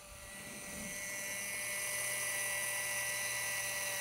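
Cook's Essentials Auto Stop Safety electric can opener running on top of a can, its small battery motor and gears giving a steady whine as it uncrimps the rim all the way around. The sound swells over the first second or so, then holds steady.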